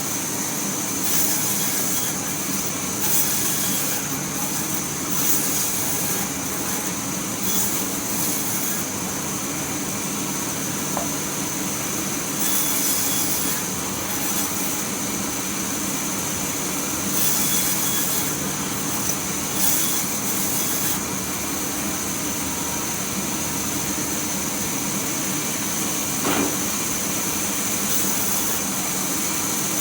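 Sawmill machinery running steadily, a continuous motor drone with recurring stretches of brighter, hissier noise.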